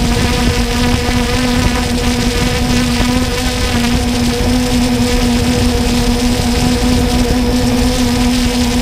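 Multirotor drone's propellers buzzing at a steady, unchanging pitch, heard from the drone's own camera, over a low rushing of wind on the microphone.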